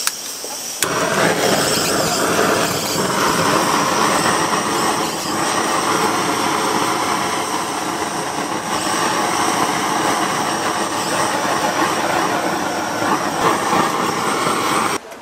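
Handheld butane blowtorch lit about a second in, its flame running with a loud, steady hiss as it sears a sauce-coated octopus skewer, then shut off abruptly near the end.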